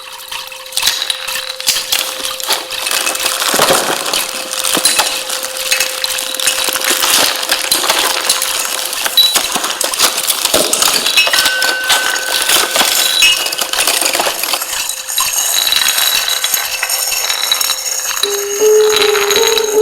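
Experimental sound-art collage of machine-like noise: a dense, unbroken clatter of small metallic clinks and clicks over a steady electronic hum, with short stepped tones near the end.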